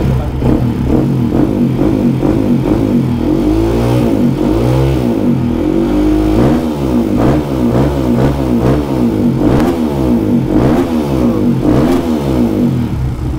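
Yamaha WR155 supermoto's single-cylinder engine revved by hand on the stand in a quick series of throttle blips, its pitch rising and falling with each one.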